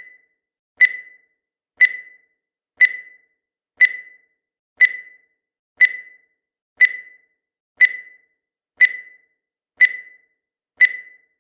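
Countdown timer's electronic beep sounding once a second, each a short, high-pitched tone that dies away quickly, marking off the final seconds.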